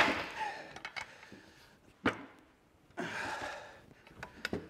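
Pipe wrench and cheater bar straining on a stuck stud clamped in a bench vise: the fading ring of a heavy metal thunk at the start, one sharp metal clank about two seconds in, a heavy breath of effort about three seconds in, and a few light clicks near the end.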